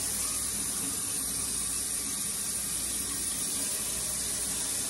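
Kitchen tap running into a metal measuring cup at the sink: a steady hiss of water.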